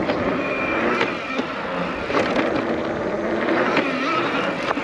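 Nireeka Mega electric bike riding on a dirt track, its motor whine rising and falling with the throttle over tyre noise, with a few sharp knocks.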